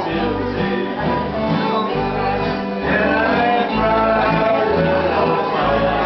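Acoustic country band playing: acoustic guitars strumming over an upright bass that sounds a steady note about once a second, with fiddles.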